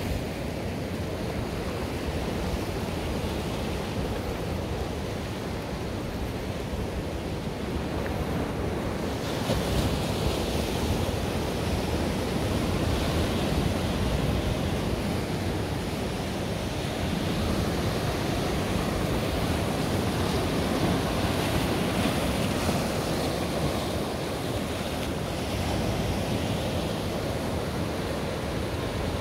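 Sea waves breaking and washing in a continuous surf, with wind rumbling on the microphone. About nine seconds in the hiss grows brighter and a little louder as the surf comes closer.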